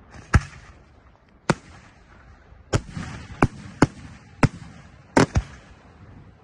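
Aerial firework shells bursting: about eight sharp bangs at uneven spacing, two in quick succession near the end, with a hiss between them.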